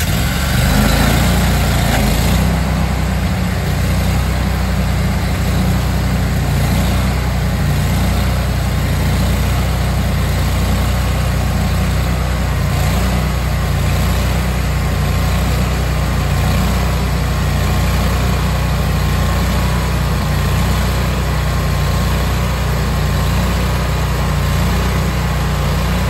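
Hudson Oscar 52 portable bandsaw mill running steadily at speed, its gasoline engine driving the spinning band blade as the saw head travels down the track toward the cant. A faint wavering whine rides over the engine from about a third of the way in.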